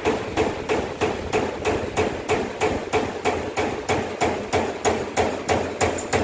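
Amada EM-series AC servo direct-drive turret punch press punching holes in sheet steel: a steady run of sharp strikes, about three a second.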